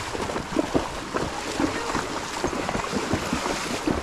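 Wind buffeting the microphone, a rough rumbling noise broken by irregular knocks and scuffs.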